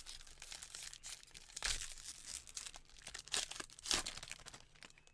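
Plastic foil wrapper of a baseball card pack being torn open, crinkling in irregular crackles with a few louder rips.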